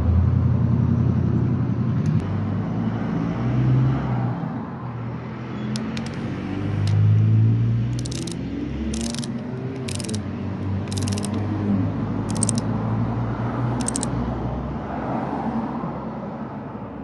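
Ratchet of a hand torque wrench clicking in short runs, about once a second, as the rocker rail bolts on a cylinder head are tightened to 20 foot-pounds. A steady low rumble runs underneath.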